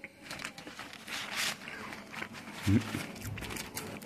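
Close-up chewing of crisp tempura of angelica tree buds (tara no me): a run of dry crackles and crunches as the batter breaks. About two and a half seconds in comes a brief low hum, the loudest sound.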